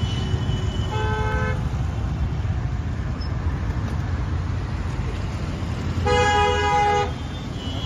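A vehicle horn honks twice over steady low traffic rumble: a short toot about a second in, and a longer, louder honk of about a second near six seconds in.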